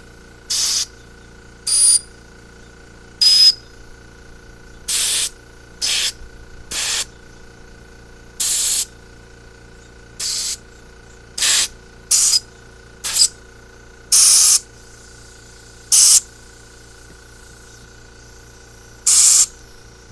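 Short blasts of compressed air from a blow gun nozzle pressed into a carburetor's passages and jets, about fifteen quick hisses in a row, a few with a brief high whistle, testing which passages blow through clear.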